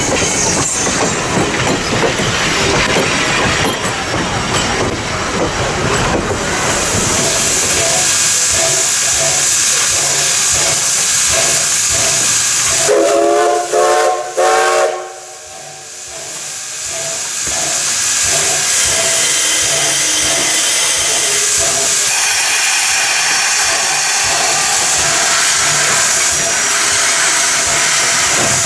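Passenger coaches rolling past on the rails with a steady rumble and clicking of wheels. About halfway through, Wilmington and Western No. 58's steam whistle sounds a few short blasts. Then steam hisses steadily from the locomotive's cylinder cocks.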